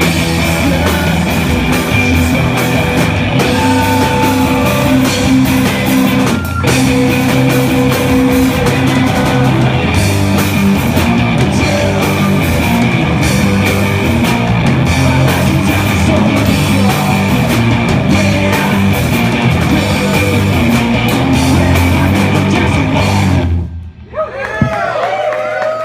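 A punk rock band playing loud and live, with distorted guitar and drums. The song cuts off suddenly near the end, leaving a few wavering, swooping tones ringing.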